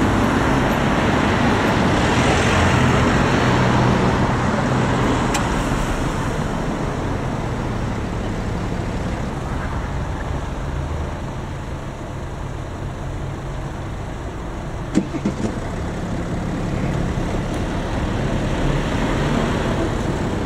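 Road traffic driving across a level crossing close by: a box truck and several cars passing, with engine hum and tyre noise, loudest in the first few seconds. Two or three short sharp knocks come about three-quarters of the way through.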